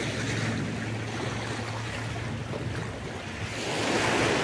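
Sea surf washing steadily, a wave surging up louder near the end.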